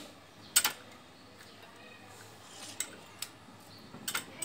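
Metal kitchen utensils, a whisk and a ladle, clinking against ceramic bowls: a sharp double clink about half a second in, two faint ticks, then a quick run of clicks near the end.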